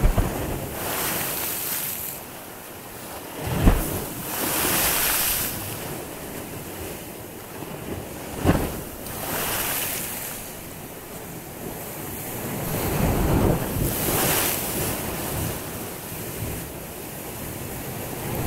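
Adriatic Sea surf: small waves breaking and washing up at the shoreline, swelling in surges every few seconds, with wind on the microphone. Two sharp low thumps stand out, about a fifth of the way in and again near the middle.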